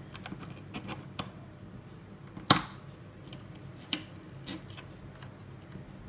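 Plastic clicks and taps from a toy RC car's remote control being handled while its batteries are fitted, with one sharp loud click about two and a half seconds in.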